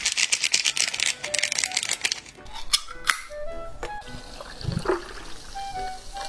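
Background music with short plucked notes. Over the first two seconds a dense, fast crackling rustle, then a canned drink being poured into a glass mug.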